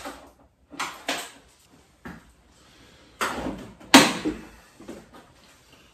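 Workshop handling noises: a few separate clicks and knocks, then a short scraping rustle ending in the loudest knock about four seconds in, as parts and cables are worked loose from the front of a motorcycle.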